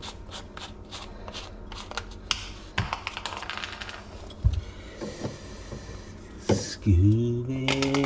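Light clicks and taps of tools and PVC fittings being handled under a kitchen sink, then near the end a held, steady hummed note from a man's voice.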